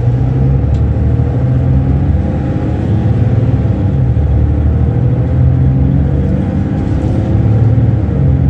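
Mercedes-Benz Citaro O530 bus's diesel engine and ZF Ecolife automatic gearbox heard from inside the passenger cabin as the bus drives along, a steady low drone whose note rises and falls a few times.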